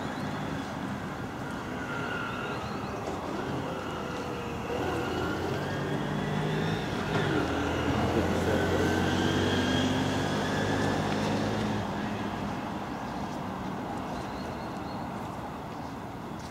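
A motor vehicle's engine passing over a steady traffic hum, growing louder from about five seconds in and fading after about twelve seconds.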